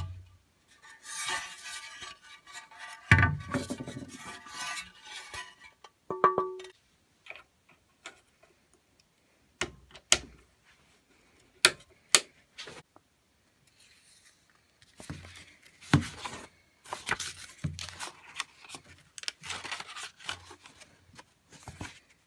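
Handling sounds on a benchtop band saw: scattered knocks and metallic clinks, a few sharp clicks around the power switch, then a stretch of paper rustling from the manual being handled near the end.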